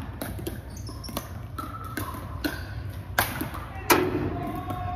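Pickleball paddles hitting a hard plastic pickleball during a doubles rally: sharp, irregular pops, with more pops from neighbouring courts, echoing in a large gym. The loudest pop comes about four seconds in. Voices chatter in the background.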